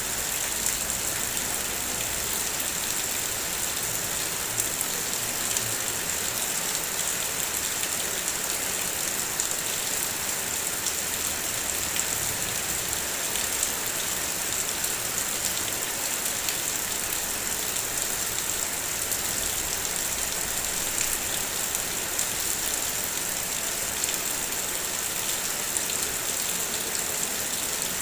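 Heavy rain falling steadily on a car, a dense even hiss with many small drop taps scattered through it.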